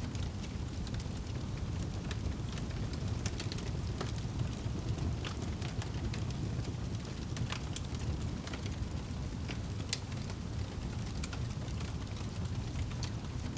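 Wood fire in a fireplace crackling, with frequent irregular sharp pops and snaps over a steady low rumble.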